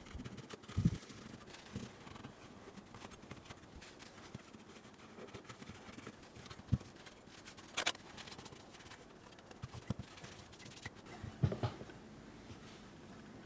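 Scattered handling noises: light knocks, taps and scrapes of small objects being handled, with a sharp click about eight seconds in and a couple of louder knocks about a second in and near the end.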